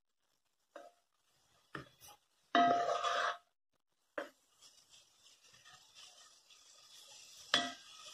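Wooden spoon knocking and scraping against a cast-iron pot as ground beef is stirred, the longest scrape about three seconds in. From about halfway the browning meat sizzles steadily, with one more knock near the end.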